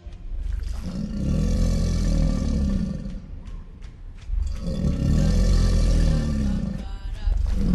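Recorded big-cat roar sound effect: two long, deep roars of about two seconds each, the pitch rising and falling in an arch, with a third starting near the end.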